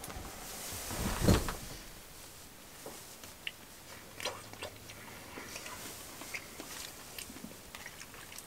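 A person eating hot oatmeal from a bowl: soft chewing and small clicks of the spoon against the bowl, after one louder thump about a second in.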